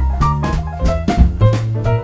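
Background music: an upbeat instrumental with a steady drum-kit beat and pitched instrument notes.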